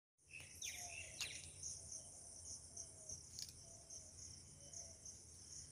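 Faint outdoor morning ambience: crickets or other insects chirping in a steady high trill that pulses about twice a second, with scattered bird calls, most of them in the first second.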